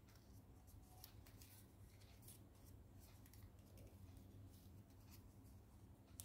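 Faint crinkling and rustling of origami paper being pinched and folded by hand, in short irregular crackles with a sharper one near the end, over a low steady hum.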